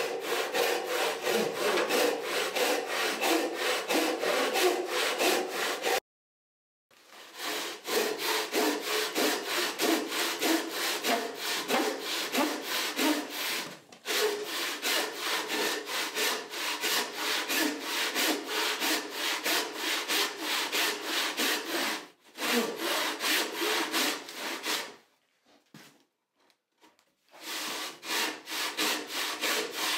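A homemade Roubo frame saw rip-sawing back and forth through a board clamped upright in a vise, resawing it into a thinner board. The strokes are steady and rhythmic, with a sudden break of about a second near the start and a longer pause near the end before the sawing resumes.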